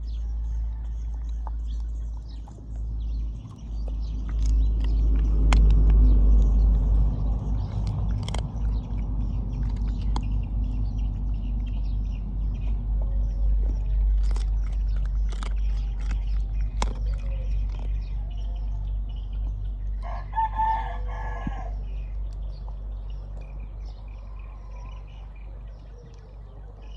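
Chickens clucking, with a rooster crowing once about twenty seconds in, over a steady low rumble and scattered sharp clicks.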